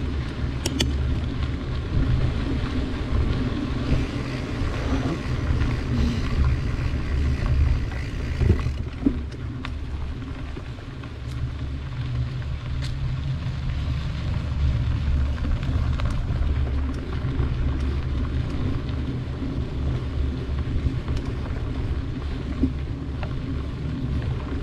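Steady low rumble of wind buffeting the microphone and bicycle tyres rolling over a dirt trail, heard from a camera on a rider, with a few brief clicks and rattles from the bike.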